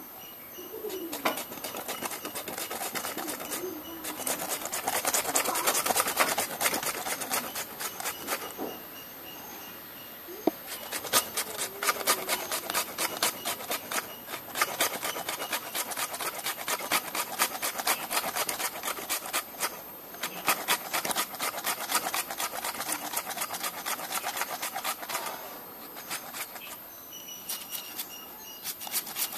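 Raw potato being grated on a handheld flat grater: rapid rasping strokes, several a second. They come in three runs, with pauses of about two seconds at around 9 seconds in and again near the end.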